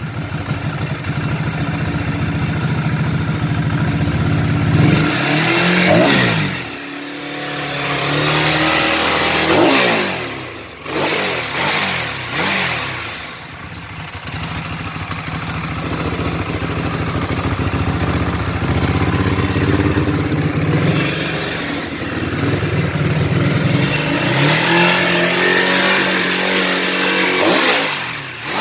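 Ducati Hyperstrada 821's 821 cc Testastretta V-twin engine running, its revs rising and falling several times about five, ten and twelve seconds in and again near the end, between stretches of steady running.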